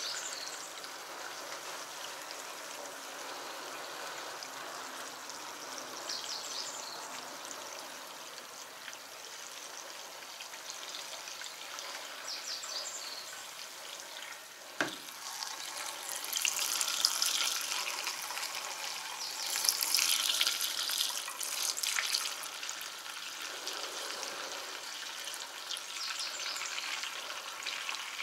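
Fuel pouring from a plastic jerry can through a flexible spout into a tractor's fuel tank: a steady trickling pour. It gets louder and hissier for several seconds past the middle, with a single sharp click just before.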